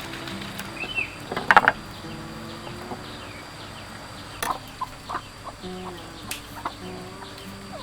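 Chickens clucking, with a few sharp knocks, the loudest about a second and a half in, over a soft background music melody.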